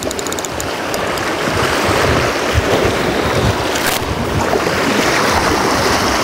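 Sea surf washing against shore rocks, a steady rushing that swells through the middle, with wind buffeting the microphone. A single sharp knock about four seconds in.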